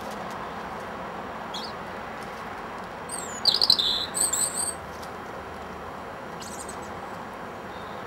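A small songbird gives a short burst of rapid, high-pitched song about three and a half seconds in, with a faint high chirp before and after. A steady background noise runs underneath.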